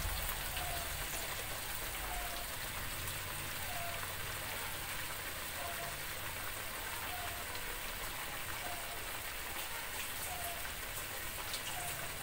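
Ground chili spice paste sizzling as it fries in hot oil in a wok: a steady hiss with small crackling pops while the paste is sautéed.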